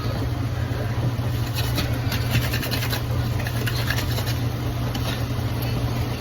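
Steady low hum with light, scattered crackling and popping, as ramen noodles bubble in a pan of water on the stove.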